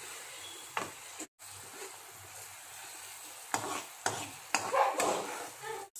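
Spatula stirring and scraping a thick onion, ginger, garlic and chilli paste frying in oil in a pan, with a steady low sizzle. A few louder scrapes and knocks against the pan come once about a second in and then several more in the second half. The paste is being fried down until light brown to cook off its raw smell.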